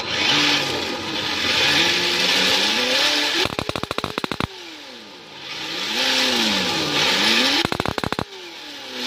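An RC car's electronic engine sound kit plays a simulated engine revving up and down through a small speaker, twice. Each rev ends in a rapid string of backfire pops and crackles.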